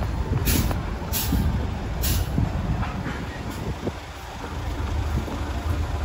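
Low, steady rumble of a diesel truck engine and road traffic, with a few short hisses in the first two seconds.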